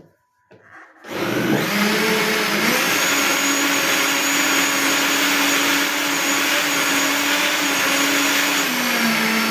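Electric blender blending fruit, run in short on-and-off pulses so as not to burn out its motor. It cuts out at the start, starts again about a second in, and then runs steadily. Its pitch steps up a second or so later and drops slightly near the end.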